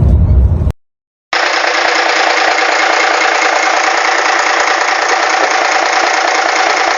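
A low rumble of a truck on the road breaks off to silence, and about a second in a FNM truck's diesel engine starts running steadily with a rattling clatter. The engine sounds thin, without bass.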